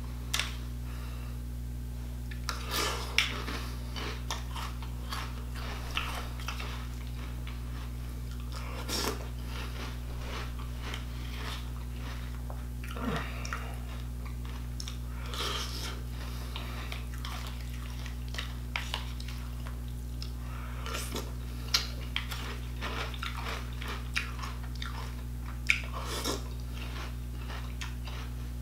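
Crunching and chewing of nearly stale Cinnamon Toast Crunch cereal, coming in short bursts every few seconds with pauses between mouthfuls, and a few sharp clicks of a plastic spoon against a plastic bowl.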